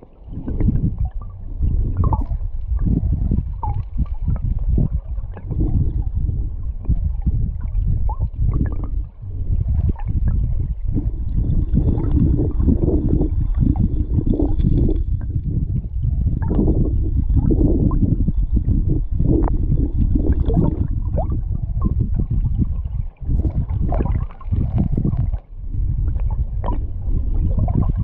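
River current rushing and gurgling, heard from underwater: a muffled, low rumble dotted with many small clicks and knocks.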